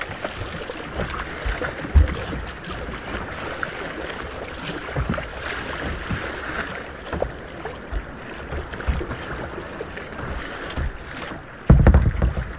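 Water splashing and lapping against a sea kayak's bow as it moves through light ripples, with a steady hiss and irregular low thumps of wind and water on the hull. The thumps are heaviest about a second before the end.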